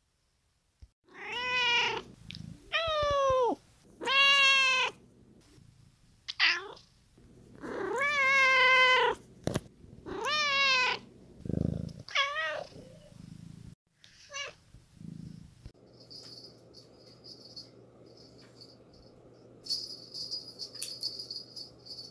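Eight domestic cat meows in a row, separate pitched calls of different lengths, most bending down in pitch at the end, spread over about fourteen seconds. After them comes a faint steady hum, then some light high jingling near the end.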